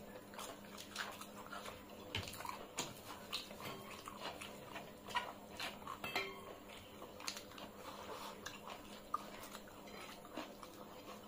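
Eating by hand from brass plates: fingers mixing rice and curry against the metal with scattered light clinks, along with wet chewing and lip smacking. The sounds are quiet and irregular, a run of small clicks rather than one steady noise.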